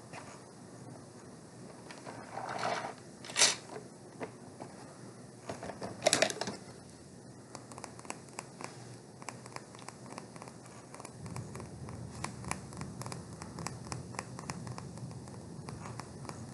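A purse being handled: rustling and scraping with many small clicks and taps, and two louder sharp clicks about three and six seconds in.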